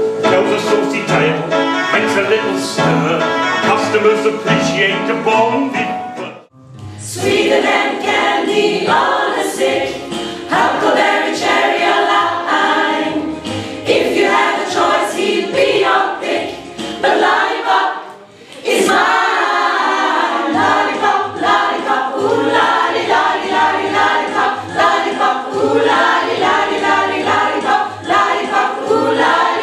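A mixed group of amateur voices singing together from song sheets. The singing breaks off briefly twice, about six seconds in and again around eighteen seconds.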